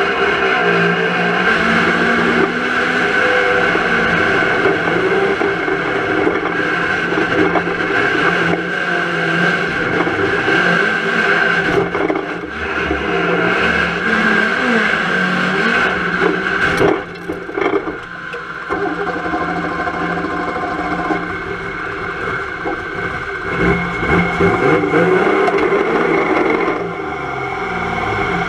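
Volvo 240 estate banger race car's engine running and revving, heard from inside the stripped-out cabin, with a brief drop in level about two-thirds of the way through.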